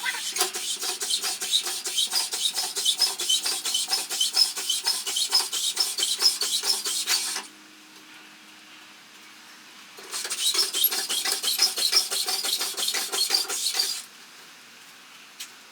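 Rapid, even metallic clicking at about five strokes a second, like a ratcheting tool being worked. It runs for about seven seconds, stops, and resumes for about four seconds.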